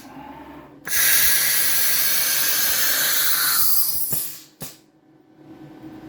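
Compressed air hissing loudly during an automatic tool change on a CNC router spindle: a blast that cuts off, restarts just under a second later, runs about three seconds and fades, then two sharp clicks.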